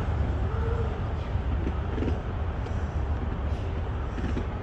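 Hushed ambience of a large congregation bowing in prayer in a big mosque hall: a steady low rumble with a few faint murmured voices.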